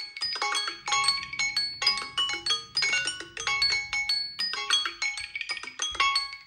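Smartphone alarm ringtone: a fast, bright mallet-percussion melody of quick struck notes, playing on without a break.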